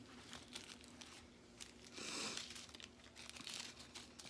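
Small plastic bags of diamond-painting drills crinkling as they are picked up and shuffled by hand, with a louder crinkle about two seconds in.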